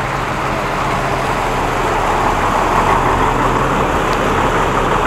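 Diesel engine of a large tour coach idling with a steady low hum, with road traffic noise around it.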